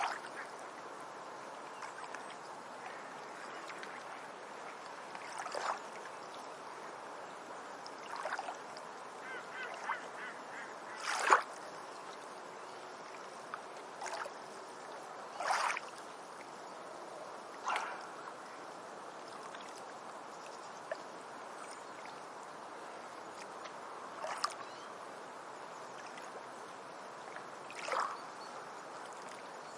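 Beach ambience recording: a steady, even background wash with several short waterbird calls scattered through it, the loudest one near the middle.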